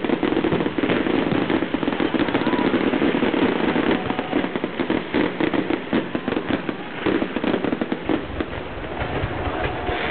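Fireworks display going off continuously: rapid, overlapping bangs and crackles, many a second, with no let-up.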